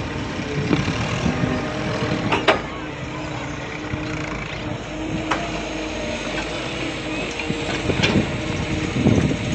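A motor running steadily, with a few sharp metallic knocks and some low thumps.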